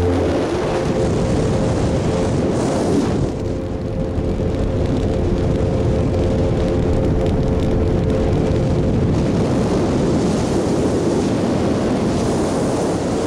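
Motorboat underway on open water: the engine's steady drone under an even rush of wind and water noise.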